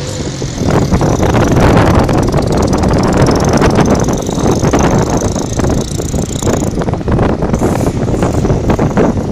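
Strong wind buffeting the microphone in gusts, loud and rumbling, with a faint high whine running through most of it.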